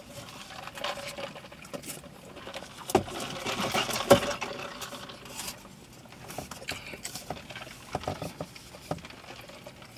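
Eating sounds from burritos being chewed and bitten: scattered small clicks and mouth noises, with a brief rustle about three to four seconds in.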